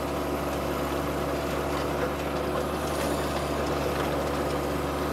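John Deere sub-compact tractor's diesel engine running steadily as the tractor drives forward, with the teeth of a front-mounted land leveler scraping through driveway gravel.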